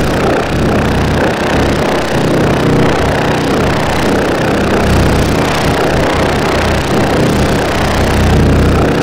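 Loud, steady engine-like machine rumble with a low hum running under a rough, dense noise.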